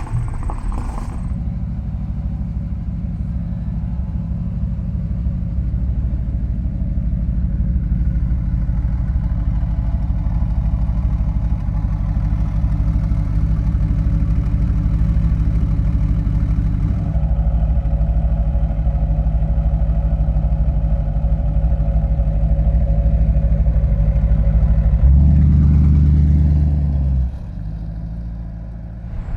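Low, steady engine rumble of a motor vehicle running close by. It swells to its loudest about 25 seconds in, then drops away.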